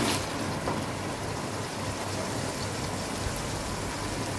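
Chicken and masala sizzling steadily in oil in a steel kadai as the masala is fried down (bhuna) until the oil separates, with a wooden spatula scraping the pan once or twice in the first second.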